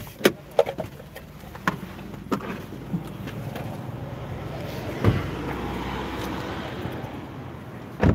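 Someone getting out of a car: clicks and knocks as the door is opened, then a steady low hum and outdoor noise that grow louder once the door is open. There is a thump about five seconds in and a louder thump near the end as the car door is shut.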